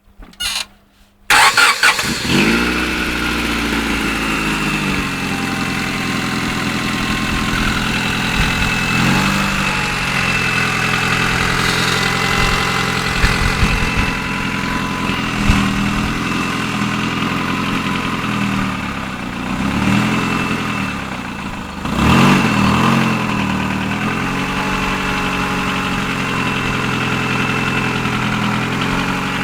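Honda F20Z1 2.0 L four-cylinder engine starting about a second in, then idling with a few brief rises and falls in revs. It has a ringing knock that the owner says appeared after the rebuild, partly masked by exhaust noise from the muffler.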